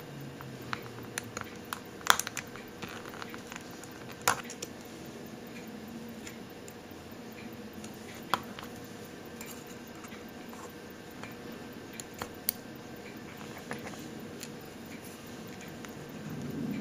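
Scattered small metallic clicks and taps from the steel links of a Twist-O-Flex expansion watch band being worked with a fine screwdriver and tweezers, over a faint steady hum. A few louder clicks stand out among quieter ticks.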